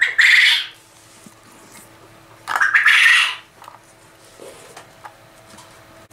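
Two loud, harsh calls from male quail, the first right at the start and the second about two and a half seconds later.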